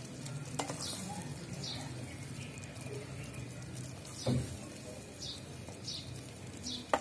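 A wooden spoon scoops thick gravy and Manchurian balls out of a pot and onto a ceramic plate, with wet scraping and stirring. There are a few knocks of the spoon against the dishes, the loudest about four seconds in and a sharp click near the end.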